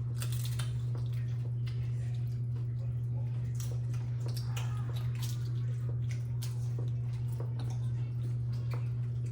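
Scattered small clicks and crunches of people eating nachos at a table, over a steady low hum that is the loudest sound throughout.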